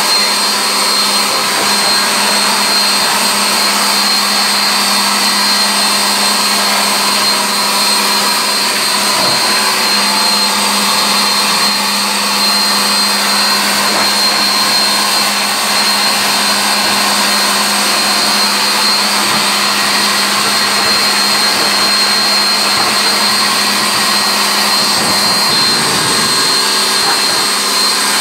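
A motor-driven machine running steadily: a constant hum with steady high whines over a loud hiss, unchanging throughout.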